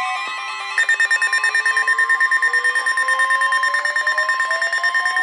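Emergency weather alert tones overlapping: a steady electronic tone just above 1 kHz, joined about a second in by rapid electronic beeping at roughly ten beeps a second and a slowly rising tone. These are the attention signals that come before a broadcast blizzard warning.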